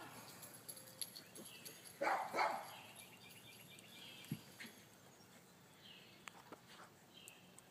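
A dog barks twice in quick succession about two seconds in, then goes quiet.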